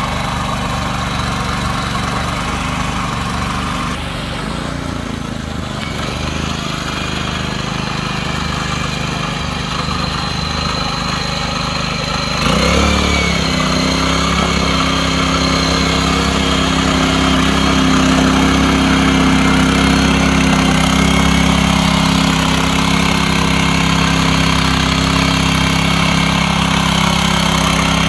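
The 7.5 HP petrol engine of a self-start mini tiller with a rotavator running steadily. About twelve seconds in it speeds up sharply and runs louder and higher from then on.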